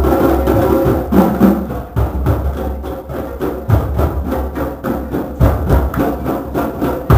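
A drum circle's hand drums and percussion playing an ensemble rhythm together: a dense run of quick strikes over deep low drum strokes, with a sharp wood-block-like click in the pattern.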